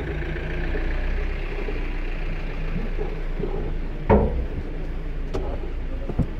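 Steady low rumble of wind and handling noise on a camera carried by someone walking. There is a sharp knock about four seconds in and a couple of lighter knocks near the end.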